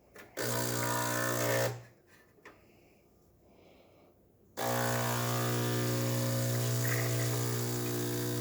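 DeLonghi Magnifica espresso machine's vibratory water pump buzzing during a brew. It runs for about a second, stops for a few seconds with a couple of faint clicks, then starts again and buzzes steadily, which is typical of a pre-infusion pulse followed by the main extraction.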